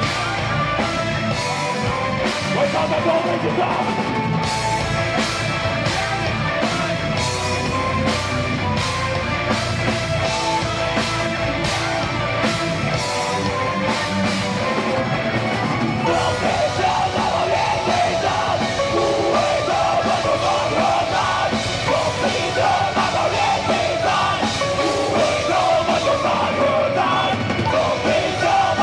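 A heavy metal band playing live and loud, with distorted guitars and a pounding drum kit, and yelled vocals. The drums hit in a steady, even rhythm, and the mid-range thickens about halfway through.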